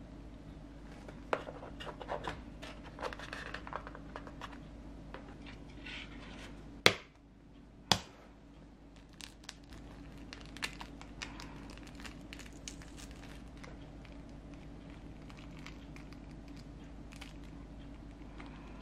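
Eggs being handled in a moulded-pulp egg carton: light rustling, scraping and small clicks, with two sharp knocks about a second apart near the middle.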